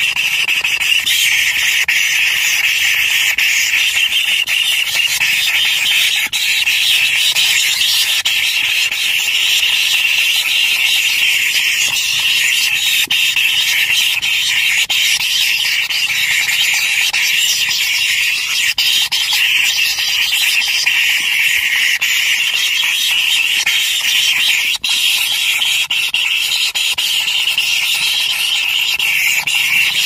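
White-throated kingfisher nestlings begging: a steady, high rasping hiss of calls that keeps on without a break.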